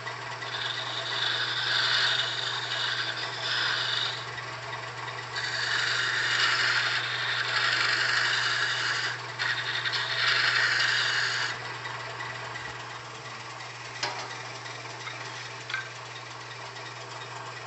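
Wood lathe motor running with a steady hum while a hand-held turning tool cuts a small spinning wooden spindle, giving three spells of hissing, scraping cuts over the first twelve seconds or so. After that only the motor hum remains, with a couple of light clicks.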